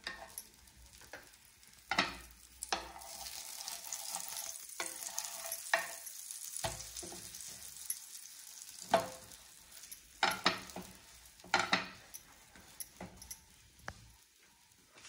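Bread frying in butter on a hot pan, sizzling, loudest through the middle. Sharp knocks and scrapes of a utensil against the pan come every second or two, several in quick succession near the end.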